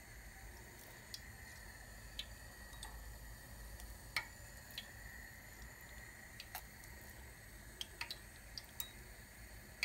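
Faint, scattered pops and ticks from lokma dough balls frying in a pan of hot oil, about one or two a second, over a low steady background.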